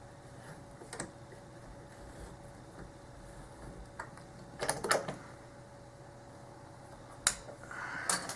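A few light, scattered clicks and taps of small metal lock-picking tools being handled at a padlock, with a quick cluster of clicks about five seconds in.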